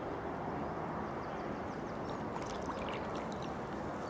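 Gentle lapping and trickling of lake water at the bank as a carp is slipped back in, steady throughout, with a few faint small splashes past the middle.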